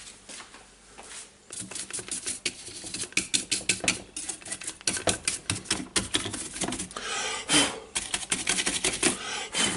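Rapid clicking and rattling of hard plastic tool parts being handled and brushed while dust is cleaned out of an opened cordless circular saw, with a brief brushing hiss partway through.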